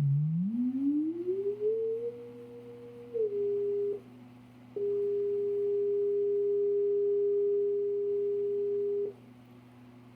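Sine-wave test tone from a signal generator, played through a Boss AR2000M car amplifier into a speaker, with the amplifier's broken ground bridged by a jumper so the signal now passes. The tone glides up in pitch over about two seconds, holds, steps slightly lower and cuts out about four seconds in, then comes back steady for about four more seconds. A faint steady hum sits underneath.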